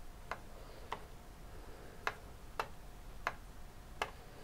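Six faint, sharp computer mouse clicks at uneven intervals, over a low steady hiss.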